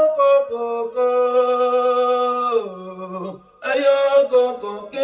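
Men singing a slow unaccompanied Igbo gospel song in long held notes; about two and a half seconds in the note slides down, the voices drop away briefly, and the singing picks up again.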